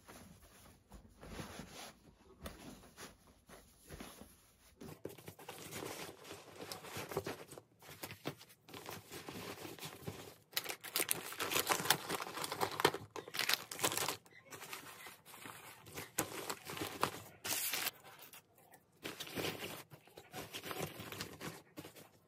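Hands packing a nylon backpack: fabric rustling and plastic packaging crinkling as towels and bagged dog food are pushed in, in irregular handling bursts that grow busier after the first few seconds.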